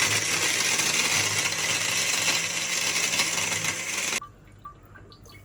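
Blender running steadily, crushing ice for a frozen strawberry daiquiri, then switched off suddenly about four seconds in.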